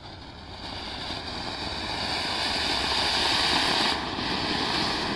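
Ashoka medium-size colourful anar (flower-pot fountain firework) spraying sparks with a steady rushing hiss. The hiss grows louder over the first three seconds, dips briefly about four seconds in, then carries on.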